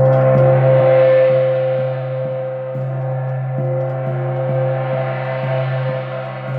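Moon gong ringing with a sustained, shimmering hum, kept sounding by soft mallet strokes about twice a second; the upper shimmer swells and fades.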